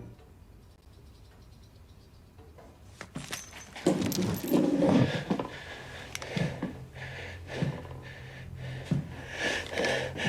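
Metallic clinks, rattles and knocks, jangling like keys or a latch being handled, starting about three seconds in after a quiet stretch.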